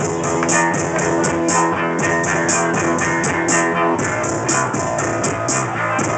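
Live band playing an instrumental passage: bass guitar and a small handheld keyboard over a steady beat with a regular hi-hat tick.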